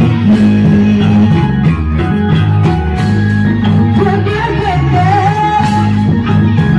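Loud music with singing over a steady beat, with a wavering, ornamented melody line in the middle.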